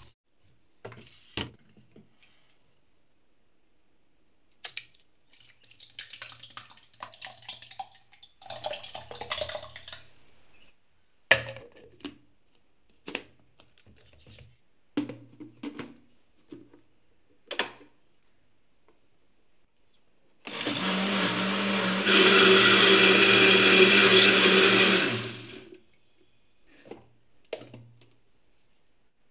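Electric mixer-grinder blending the cooked tomato mixture, its motor running for about five seconds and getting louder about a second and a half in. Before it come scattered knocks, clicks and scraping of utensils against the pot and jar.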